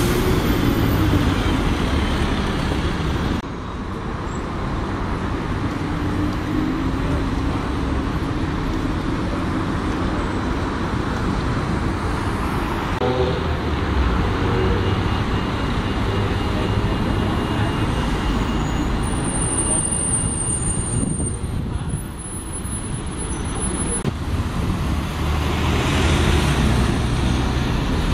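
Road traffic on a city street: buses and cars passing, a continuous engine and tyre rumble. The sound changes abruptly twice, about three seconds in and again a few seconds before the end.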